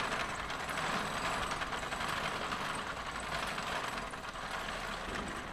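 Arkwright-type water frame spinning machine running: a steady, dense mechanical clatter from its drafting rollers and turning spindles as they twist cotton into yarn.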